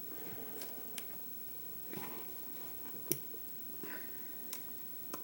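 Scattered light clicks and knocks of hands and tools working on the pit bike's front fork clamps and bolts, with the sharpest click about three seconds in.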